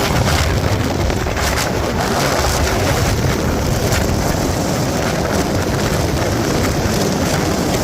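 Wind rushing over the microphone on a moving motorcycle, steady and loud, with the engine running as a low hum underneath.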